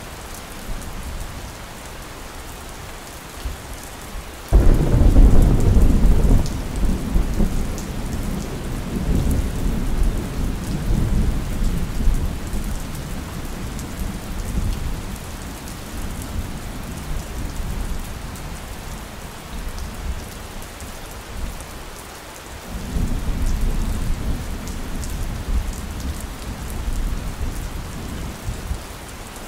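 Steady rainfall with rolling thunder. A loud rumble breaks in suddenly about four seconds in and dies away slowly over several seconds. A second, softer rumble comes near the end.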